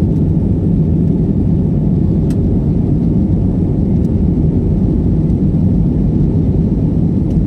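Airliner cabin noise during the climb after takeoff: a steady low drone of engines and rushing air, even in level throughout.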